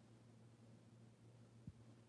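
Near silence: a faint, steady low electrical hum, with one soft low thump near the end.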